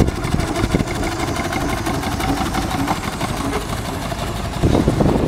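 Miniature steam traction engine running as it drives past, with a fast, even beat.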